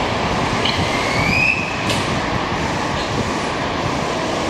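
Senboku Rapid Railway 7020 series train standing at the platform just before departure, with a steady rush of running equipment. About a second in, a short rising tone cuts off with a sharp click.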